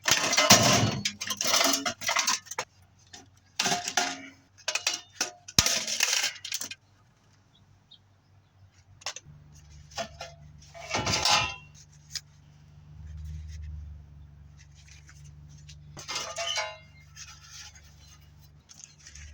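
Metal parts and hand tools clinking and clattering as small components are unscrewed and pulled out of a furnace's sheet-steel cabinet, busy at first and then sparser. A low steady hum comes in about nine seconds in.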